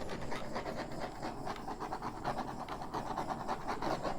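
Small handheld butane torch flame hissing steadily with a fast flutter as it is passed over wet pouring paint to pop air bubbles.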